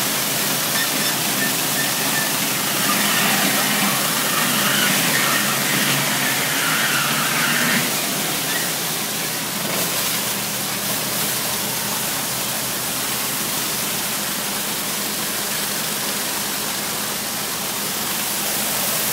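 Hot-water pressure washer with a vacuum recovery system running: a steady rushing hiss over a low hum.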